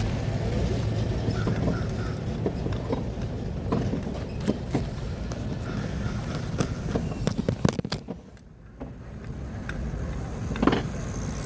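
Clicks and clanks of tire-change equipment being handled and stowed, over a steady low rumble of road traffic, with a single thump near the end.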